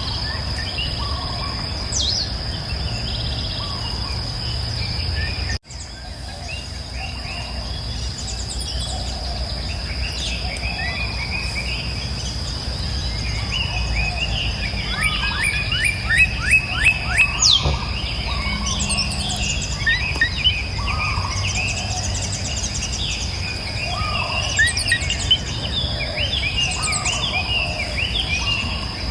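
Several songbirds chirping and singing in overlapping calls, with a quick run of repeated chirps about halfway through, over a steady high-pitched tone and a low background rumble. The sound cuts out abruptly for an instant about five and a half seconds in.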